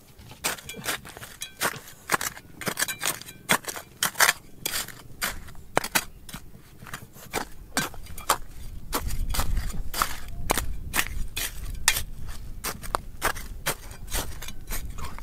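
Hand digging tools striking rock in a rapid, irregular run of sharp clicks and knocks, several a second. A low rumble comes in a little past halfway.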